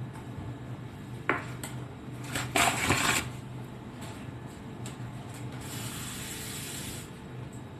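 Kitchen handling sounds while dough ingredients go into a bowl: a sharp knock, then a short loud clatter, then a softer hiss over a low steady hum.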